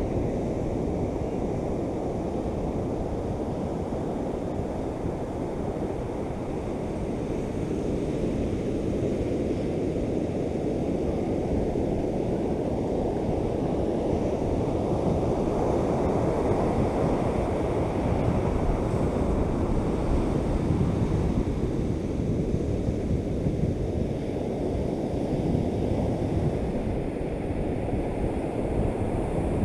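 Surf breaking on a sandy beach: a steady rush of waves that swells and eases, with wind buffeting the microphone.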